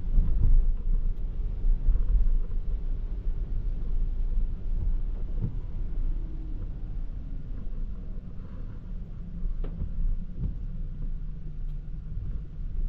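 Toyota Prius α driving on a wet road: a steady low rumble of road and wind noise, with a faint falling whine around the middle.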